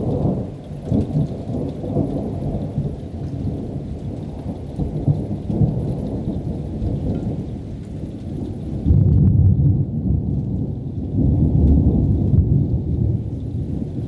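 Rolling thunder from an approaching thunderstorm: a deep rumble that breaks in suddenly, rolls on, and swells louder twice in the second half.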